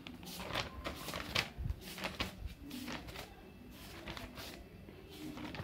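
Faint, irregular rustling and tapping handling sounds, a series of short clicks and scrapes.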